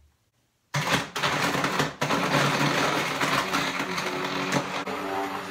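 Hand-held immersion (stick) blender running in a tall cup, blending a smoothie of almond milk, banana and ice cubes. The motor starts under a second in, cuts out for a moment just before two seconds, then runs on steadily.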